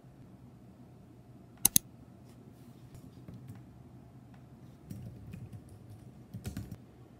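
Light tapping on a computer keyboard, with a sharp, loud double click about one and a half seconds in and a quick run of taps near the end.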